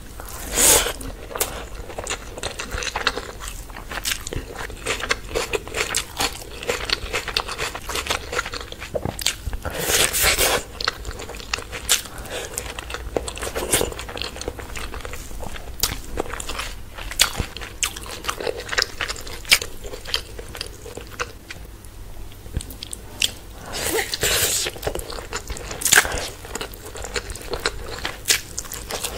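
Close-miked mukbang eating sounds: a person chewing and crunching handfuls of rice and chicken curry eaten by hand, with many sharp wet mouth clicks and a few louder bursts of chewing.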